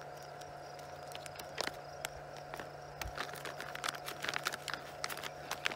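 Clear plastic vacuum-sealer bag crinkling and rustling in the hands as it is opened and catfish fillets are slid into it, the crinkles coming thicker in the second half. A faint steady hum runs underneath.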